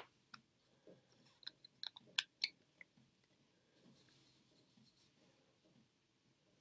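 Faint clicks and taps from a plastic powder blush compact being handled and opened, a cluster of them about one and a half to three seconds in, with a few softer ticks later and otherwise near quiet.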